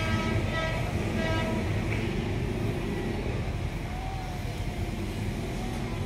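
Steady low rumble of city road traffic, with a faint high-pitched tone in the first second and a half.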